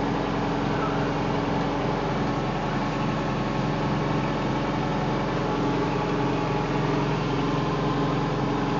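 2013 Bobcat skid-steer's diesel engine idling steadily while it warms up, heard from inside the closed cab.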